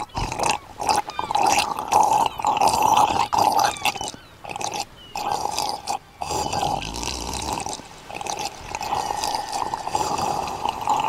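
Slurping sound effects of cartoon animals drinking coconut milk from split coconut shells.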